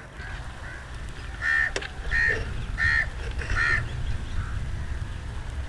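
A bird calling loudly four times in short, harsh calls about two-thirds of a second apart, with fainter calls before and after. A single sharp click comes just before two seconds in, over a steady low rumble.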